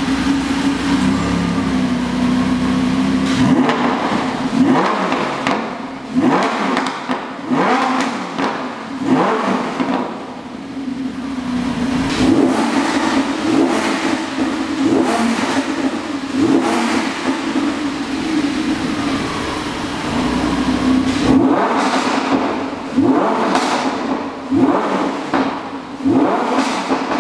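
Lamborghini Huracan LP610-4's naturally aspirated V10 idling and blipped again and again through a Fi Exhaust valved cat-back exhaust. Each rev rises and falls quickly back to idle, with a few pauses at idle between bursts of blips.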